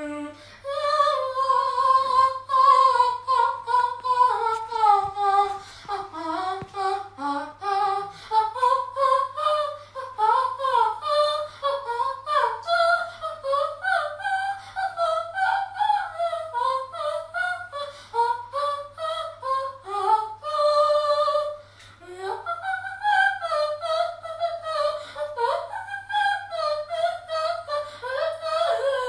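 A high voice singing a wordless melody without accompaniment, moving quickly through many short notes.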